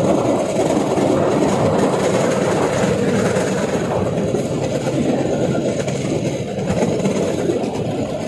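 Cambodian bamboo train (norry) running along the narrow-gauge track: a steady rumble and rattle of its wheels on the rails, with the drone of its small engine.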